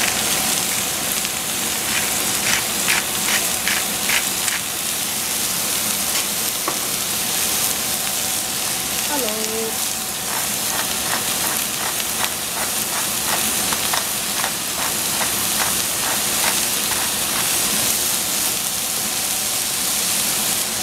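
Food frying in a pan, a steady sizzle throughout. Runs of light taps, about two a second, from a utensil stirring it come a couple of seconds in and again from about ten seconds.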